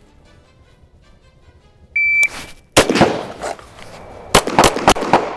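A shot timer beeps once, a short high tone. About three-quarters of a second later an AR-style carbine fires a single shot. Roughly a second and a half after that, a pistol fires three quick shots about a quarter second apart, each with a ringing echo.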